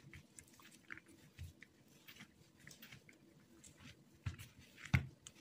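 Hands kneading crumbly cookie dough on a worktop: irregular soft squishing and crackling, with two louder thumps near the end as the dough is pressed against the counter.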